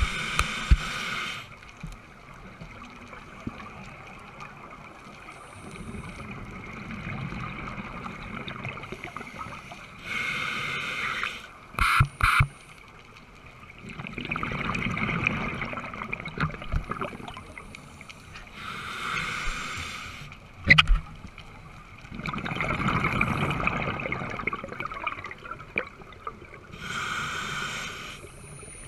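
Scuba regulator breathing heard underwater: a rush of exhaled bubbles every eight or nine seconds, with quieter breathing noise between them. There are a few sharp knocks, twice in quick succession about twelve seconds in and once again about twenty-one seconds in.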